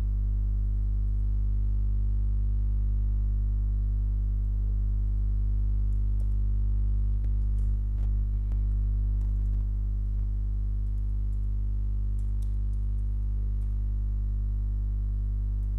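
Background music: a steady, unchanging low synthesizer drone, with a few faint clicks about halfway through.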